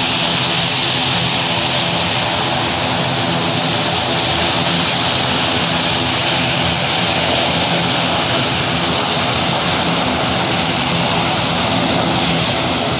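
Turboprop airliner engines and propellers on the landing roll: a steady, loud drone with a low multi-toned hum beneath a wide rushing hiss.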